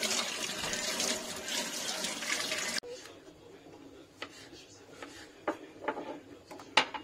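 Running water, a steady rushing splash, cut off abruptly about three seconds in. After it come a few scattered sharp knocks and clicks, the loudest near the end.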